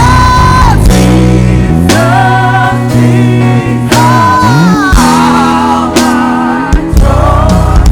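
Live church worship band music: sustained melody lines over steady bass notes, with a few drum hits and singing.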